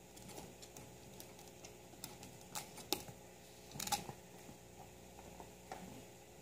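A guinea pig moving about its cage, making scattered light clicks and rustles, with two louder knocks about three and four seconds in.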